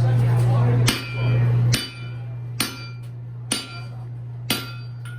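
Hammer blows on hot metal at the anvil during forge welding, five strikes just under a second apart, each with a bright metallic ring. A steady low hum runs underneath and drops sharply in level after the second blow.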